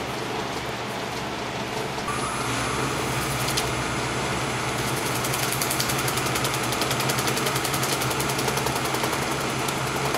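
Wood lathe starting up about two seconds in, its motor adding a steady whine over the constant noise of shop fans. A fine, rapid ticking follows as the piece spins.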